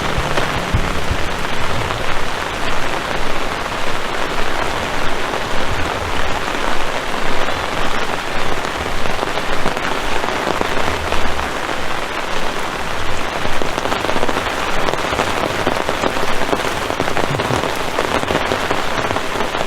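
Heavy rain falling steadily, a dense loud hiss that swells and eases slightly, with low rumbles coming and going underneath.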